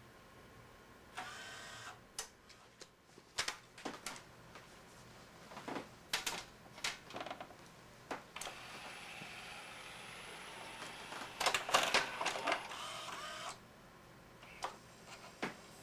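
The Alpha Turn auto-reverse mechanism of a Pioneer CLD-3070 LaserDisc player working: small motors whir in short spells amid a string of sharp clicks. About eight seconds in, a longer whir starts, with a loud flurry of clicks around twelve seconds.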